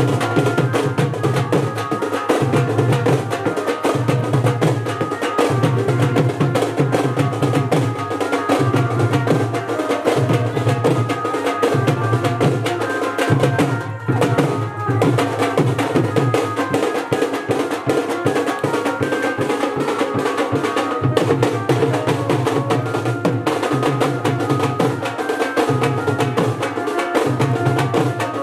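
Music with a steady, repeating drum beat and percussion.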